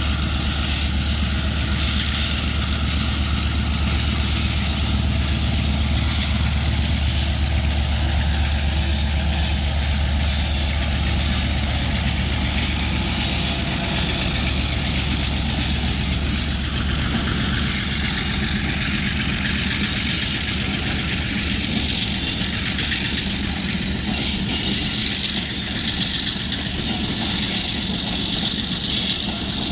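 Steady engine noise of a motorcycle idling while a diesel-hauled passenger train runs past. A strong low hum dominates the first half, and a rapid rattling pulse takes over about halfway through.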